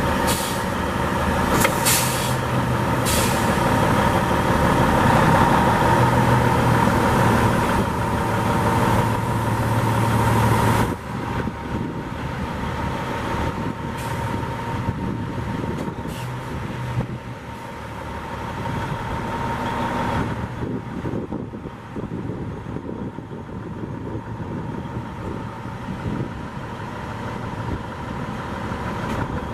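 Diesel engine of a 2000 Freightliner road tractor idling steadily, with a few short hisses in the first few seconds. The sound steps down in level about eleven seconds in.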